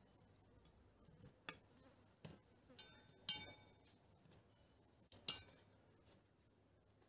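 Metal serving tongs clicking and clinking against plates as kebabs are lifted and set down: a few scattered sharp clicks, the loudest about three and five seconds in, one with a brief ring.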